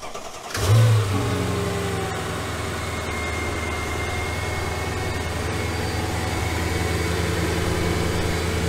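Mercedes SL 500 R230's 5.0-litre V8 starting. It catches about half a second in, flares briefly with its revs falling back, then settles into a steady idle. This is the first start with the E85 ethanol conversion box wired to the injectors, and the engine starts and idles without trouble.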